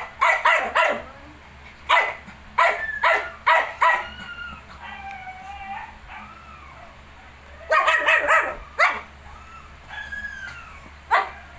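Puppies yipping in short sharp clusters, with high, wavering whimpers between the bursts.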